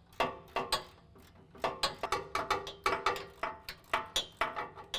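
Ratchet wrench with a 19 mm socket clicking as its handle is swung back and forth, tightening a bumper mounting nut. A few clicks come first, then a short pause about a second in, then steady clicking at about five a second.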